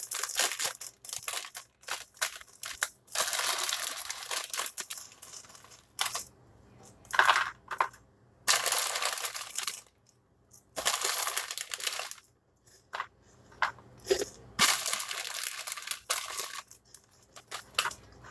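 Bag of Funyuns onion rings crinkling in repeated bursts of a second or two as it is pulled open and handled, with the rings rattling inside.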